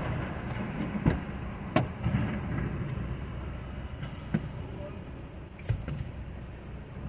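Steady low rumble of a car, with several sharp knocks and clicks scattered through it.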